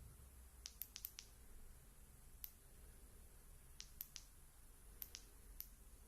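Near silence with about ten faint, short, high-pitched ticks at irregular intervals, over a low background rumble.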